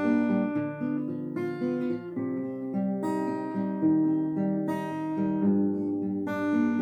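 Acoustic guitar playing strummed chords, a new chord struck about every one and a half seconds and left to ring, with shifting bass notes between the strums.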